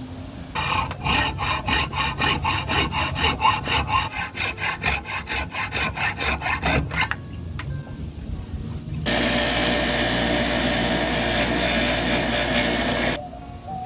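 Fast, even back-and-forth strokes of hand sawing, about four a second, for some six seconds. After a short pause a power tool runs steadily for about four seconds and stops sharply.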